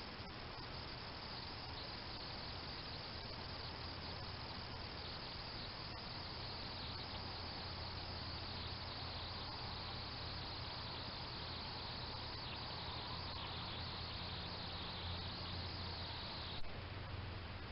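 Steady chirring of crickets, heard through a trail camera's microphone along with its hiss and a low hum. One sharp click near the end.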